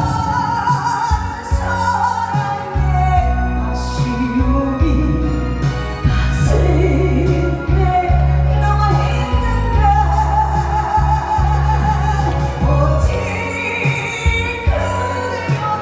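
A vocalist singing a song live over amplified musical accompaniment with a strong, steady bass.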